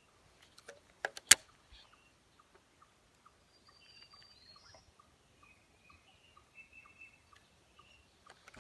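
Two sharp clicks about a second in, then faint, regular ticking about twice a second from a fishing reel being cranked during a jig retrieve, with faint bird chirps.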